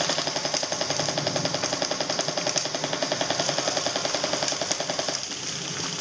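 Electric airsoft gun firing one long full-auto burst, a rapid even rattle of the gearbox cycling, that stops suddenly about five seconds in.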